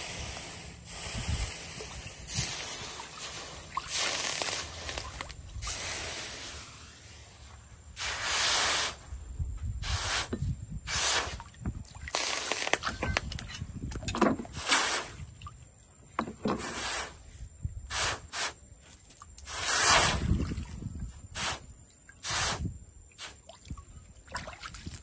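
Hot forged steel quenched in water, hissing in short, irregular bursts as the blade is dipped again and again.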